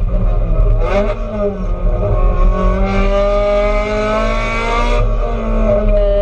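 Race car engine in the SL-H 1600 class, heard from inside the stripped cabin under racing load. The pitch dips and picks up again about a second in, climbs steadily as the car accelerates through a gear, then drops back at about five seconds and holds steady.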